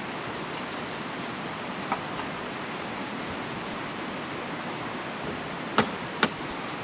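Small birds chirping over a steady background hiss. A light knock comes about two seconds in, then two sharp knocks about half a second apart near the end as the yurt's wooden door frame is fitted against the lattice wall.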